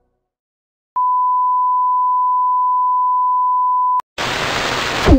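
TV colour-bar test tone: a steady, pure beep held for about three seconds. It cuts off sharply into a loud burst of hissing static, with a tone sliding downward just at the end.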